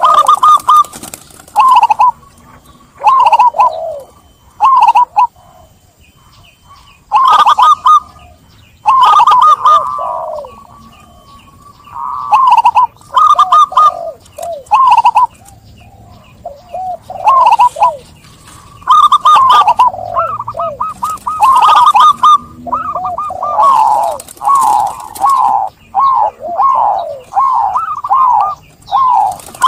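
Zebra dove (perkutut) cooing loudly in repeated phrases of short, falling notes. The phrases come with pauses between them at first and run almost without a break from about halfway.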